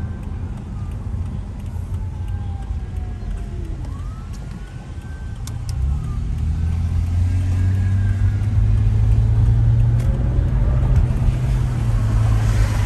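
Car engine and road rumble heard from inside the cabin, growing louder and steadier from about six seconds in as the car gets moving. Faint sirens wail, rising and falling, in the background during the first half.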